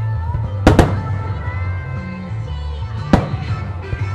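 Aerial firework shells bursting with sharp bangs, a close pair about a second in and another about three seconds in, over steady music accompanying the display.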